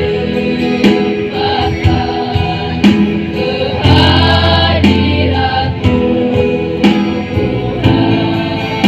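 A choir singing sustained harmonies over backing music, with a regular percussive beat about once a second.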